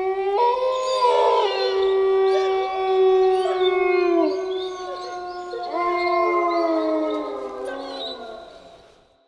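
Wolves howling in chorus: one long held howl is joined about half a second in by several others at different pitches, overlapping, many sliding down in pitch. The chorus fades out near the end.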